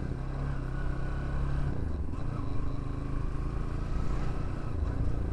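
Bajaj Pulsar NS160 single-cylinder motorcycle engine with a modified exhaust, running steadily; about two seconds in its even hum turns to a rougher rumble.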